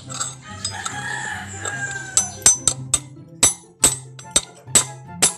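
A hammer strikes a steel T-wrench rod pushed through a motorcycle's front wheel hub, driving out the cracked wheel bearing. About eight sharp metallic blows come in the last three seconds. A rooster crows in the background during the first two seconds.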